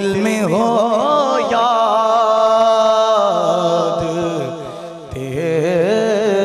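Male naat reciter singing a long, drawn-out melismatic phrase in Urdu devotional style, over a steady low drone. The voice dips briefly about five seconds in, then comes back.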